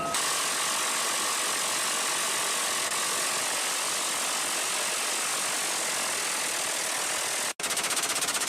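A steady, even rushing noise from a vehicle or engine runs until it cuts off sharply near the end. It is followed by a rapid, rattling burst of minigun fire about a second long.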